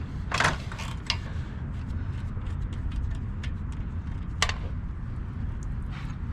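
Hands working on a pressure washer's small engine: a few short mechanical clacks and a creak over a steady low rumble.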